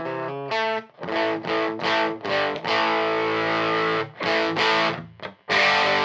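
A 1955 Gibson Les Paul Junior electric guitar played through a converted Bell & Howell Filmosound projector tube amplifier, with some distortion. A few picked notes lead into a run of strummed chords with short gaps between them, one chord held for over a second.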